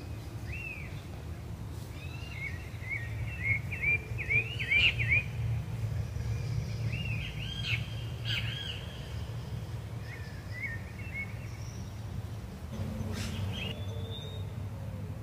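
Small birds chirping in quick runs of short, arched notes, densest in the first nine seconds or so and sparser after, over a steady low rumble.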